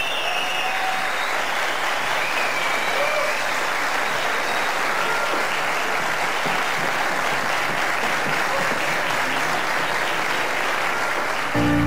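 Studio audience applauding steadily, with a few shouts and whistles in the first seconds. Music starts suddenly just before the end.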